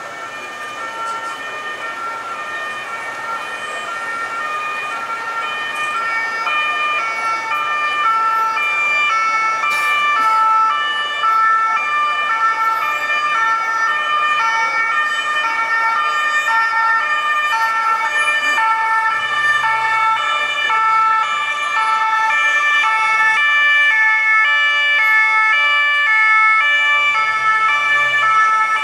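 Two-tone emergency vehicle siren alternating between a high and a low note about every half second. It grows louder over the first several seconds as the vehicle approaches, then stays loud.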